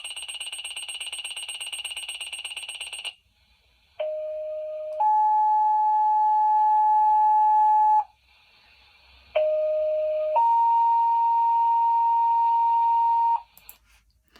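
Firefighter's pager going off for a fire call. It opens with about three seconds of rapid high beeping. Then come two rounds of two-tone dispatch tones, each a short lower tone stepping up to a longer, steady higher tone.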